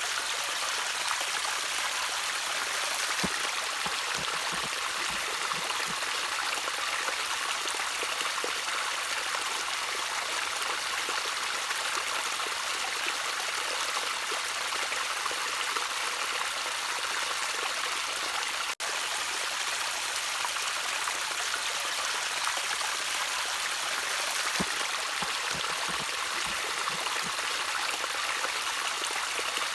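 Gentle stream of water trickling steadily, an even rush with scattered small gurgles. The sound cuts out for an instant about two-thirds of the way in.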